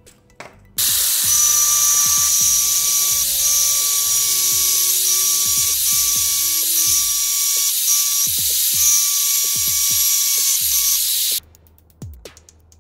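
Angle grinder running with a steady high whine over a grinding hiss as it grinds a flat onto the steel shaft of a 775 DC motor, the whine dipping briefly several times. It starts just under a second in and cuts off suddenly near the end, over background music with a beat.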